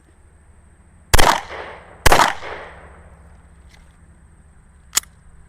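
Two pistol shots about a second apart, each with an echoing tail, followed near the end by a single sharp click.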